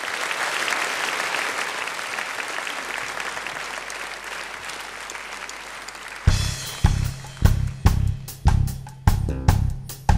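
Audience applauding; about six seconds in, a drum kit comes in with a steady beat of bass drum and cymbals.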